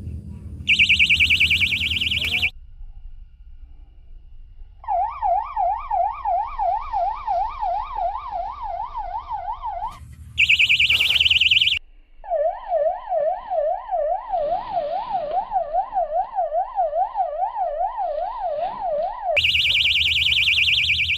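Electronic siren-type alarm cycling through its tones. Three short spells of a loud, fast high warble alternate with longer stretches of a wailing tone that sweeps up and down about three or four times a second.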